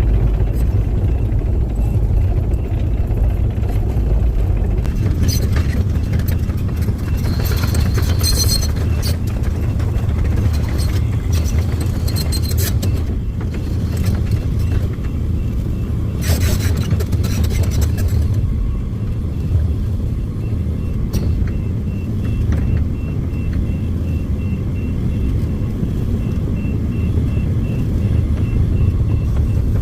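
Heavy excavator diesel engine running with a steady deep rumble, with short high metallic squeals and clanks now and then. From about halfway in, a backup alarm beeps about twice a second.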